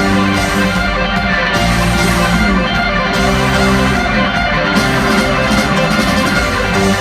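Live rock band playing loud, with electric guitars over bass and drums, notes and chords changing every second or so.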